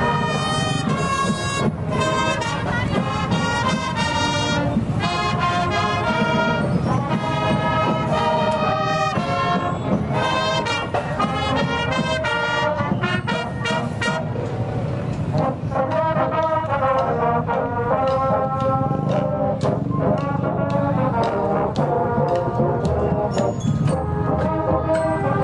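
Marching band playing a tune: trumpets and large brass horns carry the melody over drum beats.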